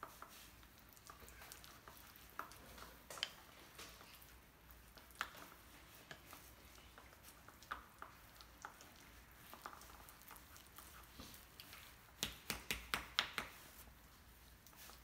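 Avocado being mashed in a bowl with a plastic utensil: soft squishing with scattered light taps of the utensil against the bowl, and a quick run of about six taps near the end.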